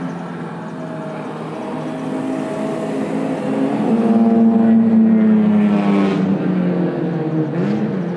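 Toyota minivan's engine and exhaust as it drives slowly past close by, growing louder about halfway through and easing off again near the end.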